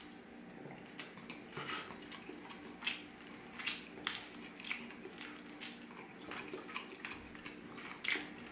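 Close-miked wet chewing and lip-smacking as a person bites and sucks boiled chicken off the bone, with irregular sharp smacks every half second or so.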